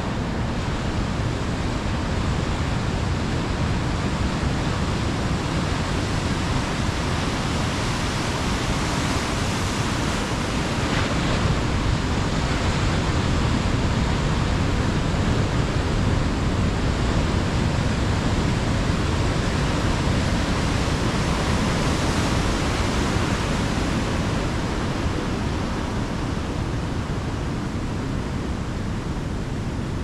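Ocean surf breaking under steady rain in a storm: a continuous wash of noise that swells a little in the middle and eases toward the end.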